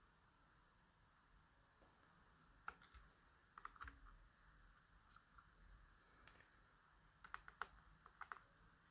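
Faint, scattered small clicks and taps of tiny brass lock pins and a disassembled padlock's parts being handled, in a few short clusters over near silence.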